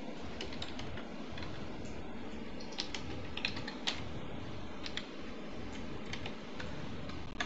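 Computer keyboard being typed on: irregular key clicks, thickest about halfway through, over a steady background hum.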